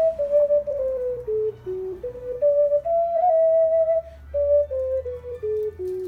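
Clay Songbird ocarina playing a slow melody of single pure notes, stepping down, climbing back up, then stepping down again. There is a short break in the playing about four seconds in.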